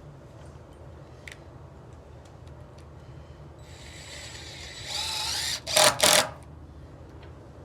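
A handheld power tool whirring with a rising whine for about two seconds, then two short, loud bursts close together, over a steady low hum.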